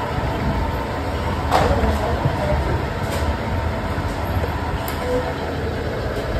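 Soap-processing machine running with a steady low mechanical rumble as green soap mass drops from its roller into the trough. A single knock with a brief ring about a second and a half in, and fainter ticks later.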